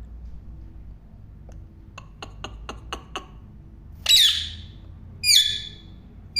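Parrot calling: a quick run of five short clicking chirps, then two loud, harsh squawks about a second apart near the end.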